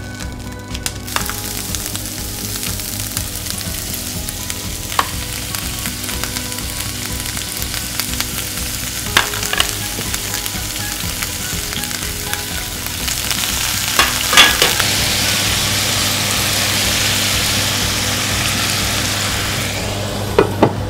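Soybean sprouts and sliced pork belly sizzling in hot oil in a frying pan. The sizzle starts about a second in and grows louder, with a few sharp clicks of tongs against the pan. Near the end a glass lid clatters onto the pan and the sizzle drops.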